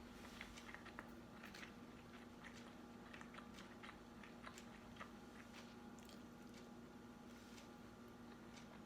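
A person chewing food close to the microphone: faint, scattered mouth clicks and smacks over a steady low hum.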